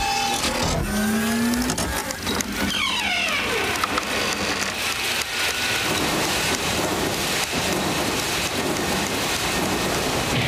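Cartoon sound effects of a gear-driven contraption starting up, with clicks and a short rising whir, then falling whooshes giving way to a long, loud rush of churning water as a big wave builds.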